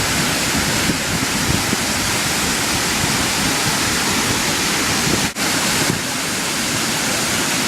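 Waterfall: a loud, steady rush of falling water, broken by a brief drop about five seconds in.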